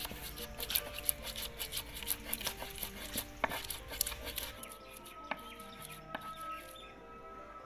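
Oval stone pestle crushing and rubbing a spice paste on a ridged grinding plate: quick gritty scraping and crunching that stops about four and a half seconds in, with soft background music underneath.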